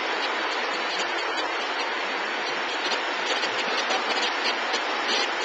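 Steady, even machine noise with a hiss, holding at a constant level.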